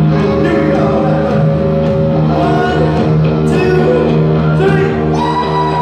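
Live rock band playing: electric guitars, bass and drums, with a singer's voice over them.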